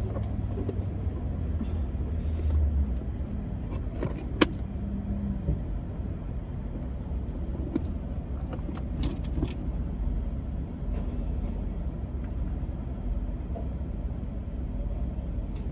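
Car idling, heard from inside the cabin: a steady low engine and road rumble, with one sharp click about four seconds in and a few faint ticks later.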